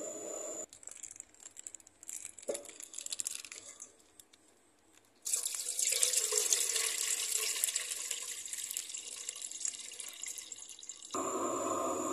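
Hands squeezing wet grated coconut in a bowl to press out coconut milk. Liquid splashes and streams loudly for about six seconds, after a few seconds of scattered light clicks and rustles.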